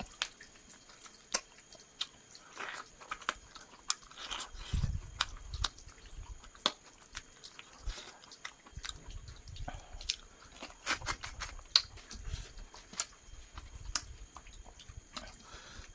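Close-up eating sounds of a person chewing and biting chicken: irregular wet mouth clicks and smacks with a few low thuds.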